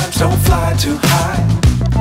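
Background music: a song with a singing voice over a steady bass beat of about two strikes a second.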